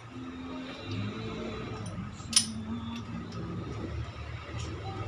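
Metal parts clinking during a 4A cylinder head teardown: one sharp clink about two and a half seconds in and a fainter one near the end, over a low background hum.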